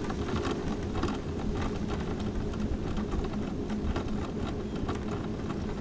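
Electric mobility scooter driving along a cracked asphalt street: a steady low motor hum under tyre rumble, with frequent small rattles.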